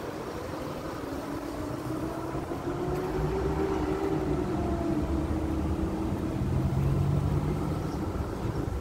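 A motor vehicle's engine passing by, its drone rising slightly in pitch and then falling as it grows louder, easing off a little near the end.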